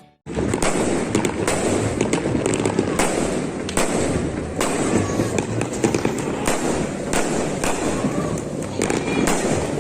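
New Year fireworks going off in a dense barrage: many overlapping bangs and crackles with no gap between them, starting abruptly a moment in.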